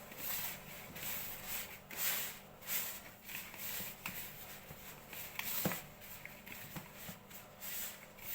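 Hands rubbing whole-wheat flour with oil and melted butter in a large pan: a dry, uneven rustling in repeated strokes, with a few light clicks.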